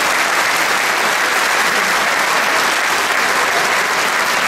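A large congregation applauding steadily, many people clapping at once.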